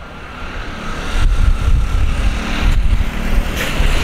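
Wind buffeting the microphone over the steady rumble of a Boeing 787-9 jet airliner on final approach to land, its noise growing slightly toward the end.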